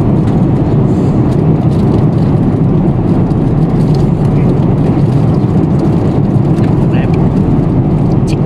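Steady airliner cabin noise in flight, a loud, even low roar. A few light clicks and rustles come from a cardboard meal box being opened and handled.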